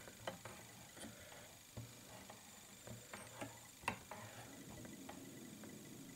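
Faint, scattered clicks and taps from small tools being handled at a fly-tying vise, over a low room hum; the sharpest click comes about four seconds in.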